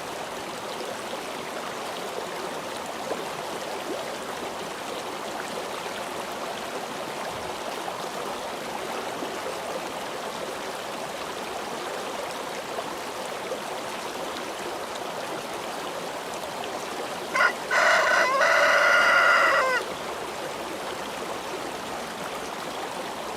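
A rooster crowing once, a loud call of about two seconds whose pitch drops at the end, over a steady background hiss.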